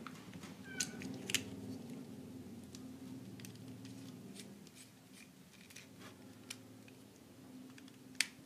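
Small screwdriver working the terminal screw of a push-button switch to clamp a wire: scattered light clicks and scrapes of metal on the screw and plastic housing, the sharpest about a second in and near the end. A faint low hum underneath fades away during the first few seconds.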